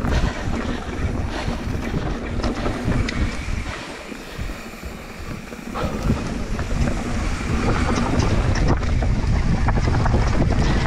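Mountain bike riding down a dirt forest trail: wind rushing over the camera microphone, with tyres and frame rattling and clicking over the bumps. It quietens for a moment about four seconds in, then picks up again.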